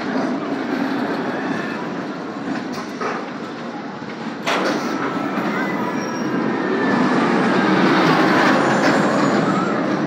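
Steel wild-mouse roller coaster cars running along the track, a steady wheel rumble with a faint squeal. There is a sharp clack about four and a half seconds in, and the rumble grows louder near the end as a car passes closer.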